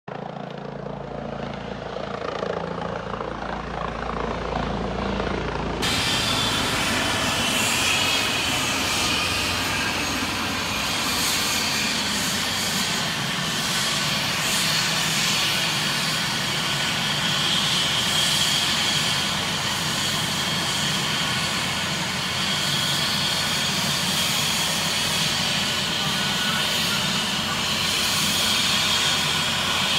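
Yellow EC135 trauma helicopter running: its steady low rotor drone as it flies overhead, then from about six seconds in a louder, even rush of rotor and engine noise with a high turbine whine, close by.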